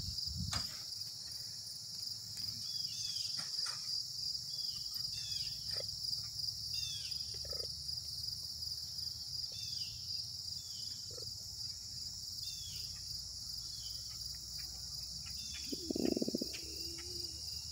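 Steady high chirring of insects in a rural evening, with a few faint scattered bird chirps over a low rumble. About sixteen seconds in comes a brief, faint, low pitched sound.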